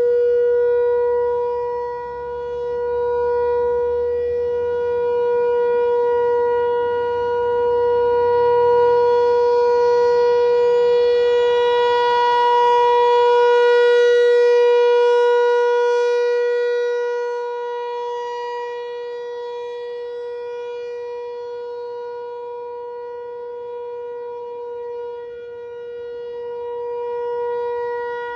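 American Signal Tornado T-128 outdoor warning siren sounding a steady alert tone: one unwavering pitch rich in overtones, swelling and fading slowly as the rotating head sweeps around.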